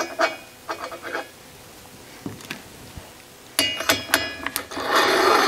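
Steel tooling clinking as a hand valve-seat cutter is fitted over its pilot in a cylinder head's valve seat. There are a few sharp ringing clinks at first and a quick cluster of them about three and a half seconds in, then a louder steady noise sets in near the end.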